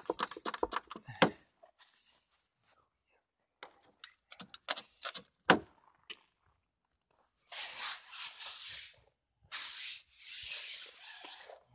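Someone working at the frozen-shut doors of a Kia Spectra: rapid clicks and knocks of the handle and door, one loud thump about five and a half seconds in, then two scraping rubs of about a second and a half to two seconds each. The doors are iced shut in hard frost.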